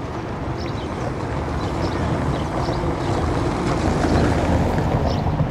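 Inboard engine of a small wooden fishing boat running steadily as the boat motors past, growing louder over the first few seconds.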